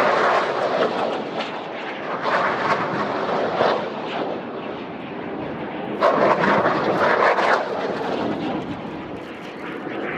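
A salvo of rockets launching: a sudden rushing roar at the start, and another about six seconds in, each fading as the rockets climb away.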